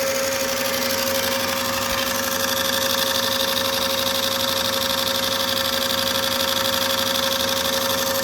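RCA TP-66 16mm film projector running empty with no film threaded: a steady mechanical whir from its motor and film-transport mechanism over a steady hum, with a higher whine joining in a couple of seconds in.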